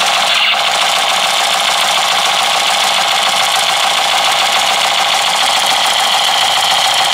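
Battery-powered toy machine gun firing continuously, its electronic gunfire sound effect and vibrating mechanism running steadily.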